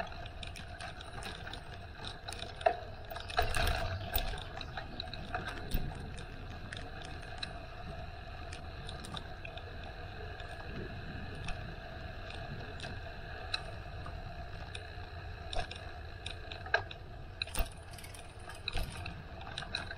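Bicycle being ridden: a steady rolling hum with scattered mechanical clicks and rattles, with louder clusters of rattles a few seconds in and again near the end.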